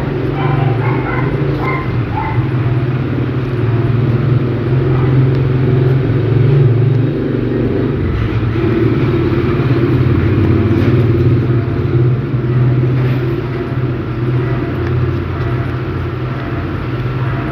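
Steady low motor-like rumble, like road traffic, swelling and easing slightly, with faint crinkles of the paper being folded into an origami bird.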